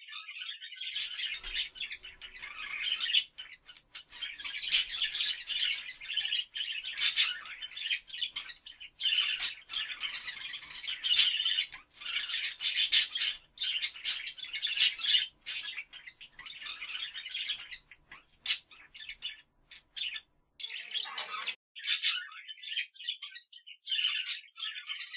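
Parrots chattering: a steady stream of high chirps broken by sharp squawks every second or two, with a short lull before it picks up again near the end.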